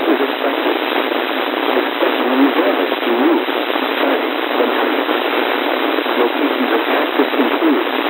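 Weather radio receiver on a weak signal: a steady hiss of static, thin and band-limited, with a faint voice buried under it and too weak to make out.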